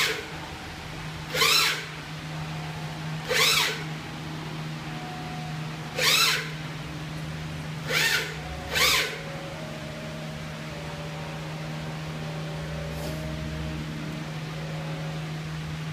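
Cement 3D printer running, its motors giving a steady low hum, broken by six short, loud whirring sounds at uneven intervals in the first nine seconds.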